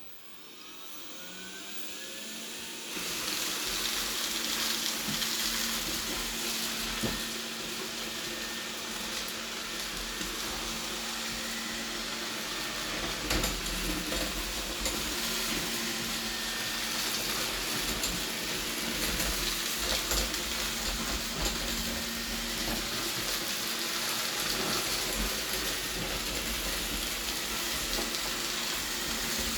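Robot vacuum in spot-cleaning mode: its suction motor spins up with a rising whine over the first few seconds, then runs steadily with brush and airflow noise and a constant low hum.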